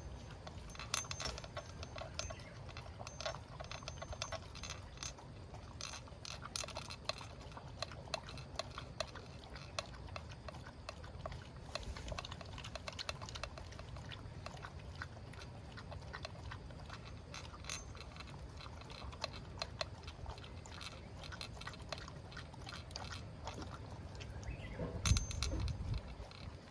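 A pet eating its breakfast: a long run of irregular small clicks and taps of chewing and food against its dish, with a louder dull thump near the end.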